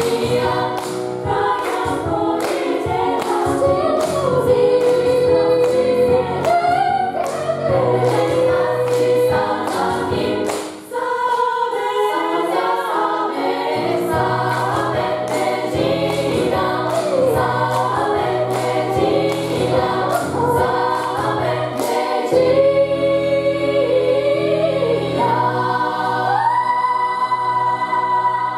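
A large gospel choir singing in parts over a low bass line, with a steady beat. Near the end the singers hold a long final chord that cuts off at the close.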